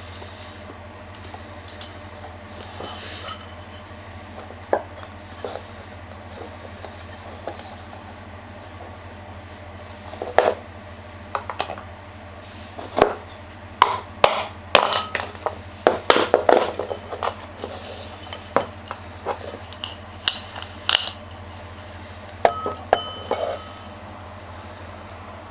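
Metal tools and parts clinking and knocking as they are handled, a few at first and then many irregular sharp clinks through the middle and latter part, over a steady low hum.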